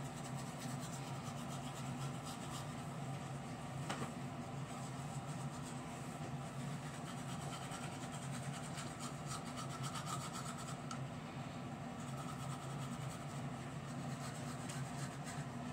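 Toothbrush scrubbing teeth: a steady, rapid scratchy rubbing, close to the microphone, with one small click about four seconds in.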